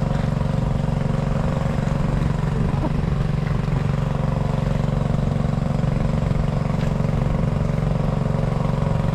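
Small engine running steadily at one constant speed, the engine of a pump draining a fish pond.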